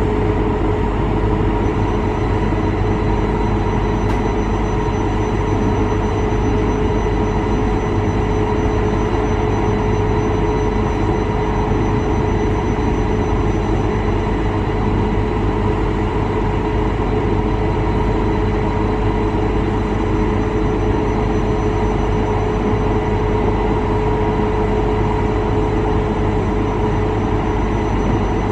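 Newag Impuls 2 electric multiple unit running between stations, heard from inside the passenger car: a steady rolling rumble of wheels on rail with a few steady electric tones above it.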